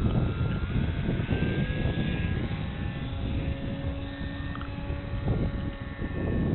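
Electric motor and propeller of a foam RC airplane whining in flight, the pitch shifting with the throttle and stepping up about a second and a half in, over heavy wind rush on the microphone.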